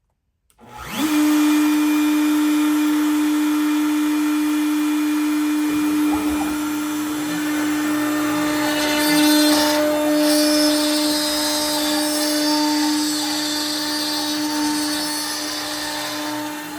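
A router starts about half a second in, spins up quickly and runs loudly with a steady high whine. From about six seconds in the sound turns rougher and noisier as it mills black walnut.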